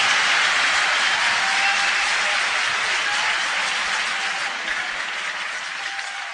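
Concert audience applauding after the song ends, the clapping slowly fading away.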